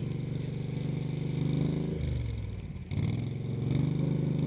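Argo HDI amphibious ATV's engine running under load in low range as the tracked machine pushes through flood water; the revs drop about two seconds in, then rise again about three seconds in.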